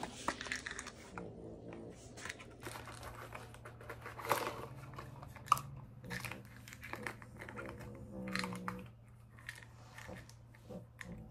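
A cardboard medicine box and its packaging handled and opened by hand: a run of small crinkles, scrapes and clicks, with the sharpest click about five and a half seconds in.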